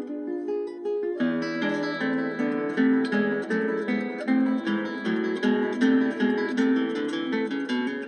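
Background music on acoustic guitar, plucked and strummed notes, growing fuller with a held low note about a second in.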